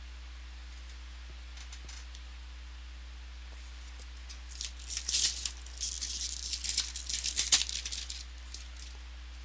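A trading-card pack's wrapper crinkling and tearing open in a crackly burst of about four seconds, over a steady low electrical hum.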